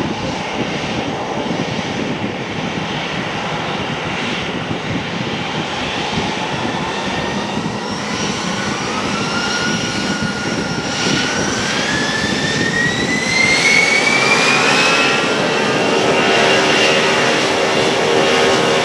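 Airbus A321 jet engines spooling up: a whine rises steadily in pitch from about halfway in, then levels off near the end, with the overall sound growing louder.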